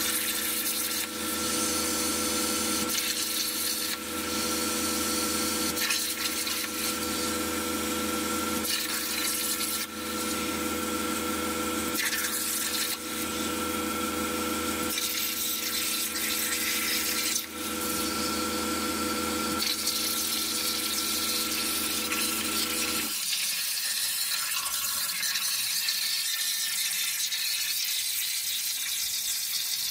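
Jasic Cut 45 plasma cutter on a homemade CNC table cutting sheet steel: a loud, steady hiss of the arc and air, dipping briefly a few times. A humming tone underneath stops about three-quarters of the way through while the hiss carries on.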